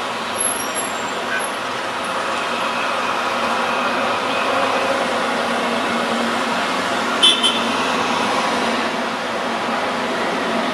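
Steady city traffic noise, a continuous hum of passing vehicles, with a brief sharp metallic click about seven seconds in.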